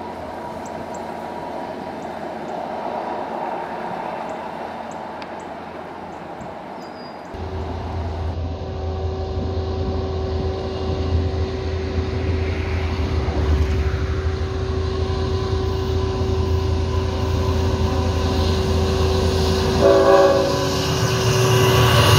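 A VIA Rail passenger train rumbling as it moves away, then, after about seven seconds, a CN intermodal train led by GE ET44AC locomotives approaching with heavy diesel rumble. Its Nathan K5HL five-chime air horn sounds a long held chord in salute, broken briefly near the end, while the train grows louder.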